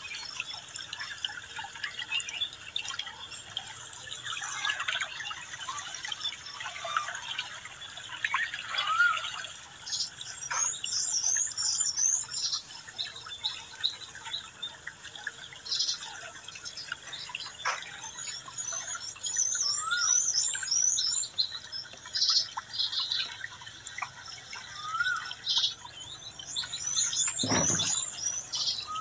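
Wild birds calling. One bird repeats a quick, high warbling phrase about every eight or nine seconds, with short rising notes and scattered chirps between. A single soft knock comes near the end.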